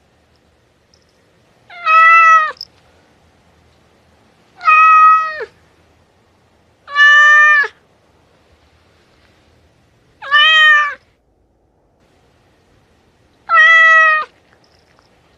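Domestic cat meowing five times, each meow under a second long and a few seconds apart, each dropping in pitch at the end.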